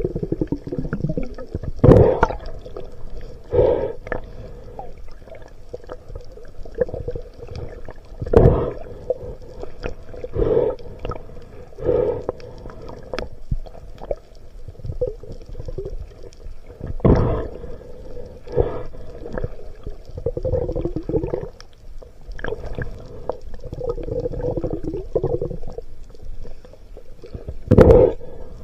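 Underwater sound through the camera's housing: water sloshing and swishing in irregular loud surges every second or two, over a faint steady hum.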